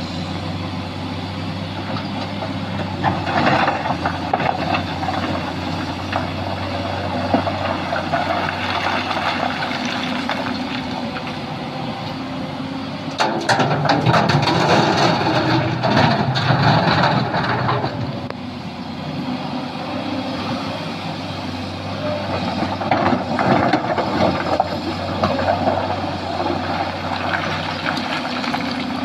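Sany SY215C hydraulic excavator's diesel engine running steadily while it digs and loads fill material, with a louder, noisier stretch in the middle as it works under load.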